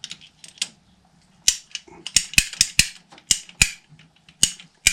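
Hand-operated press tool clicking as it is worked to push the sliding collar over a PER pipe slide fitting. The clicks start about a second and a half in and come sharp and uneven, two to three a second.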